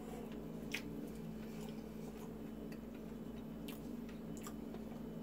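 A person chewing a hot, fudgy chocolate cake bite, with a few faint wet mouth clicks, over a steady low hum.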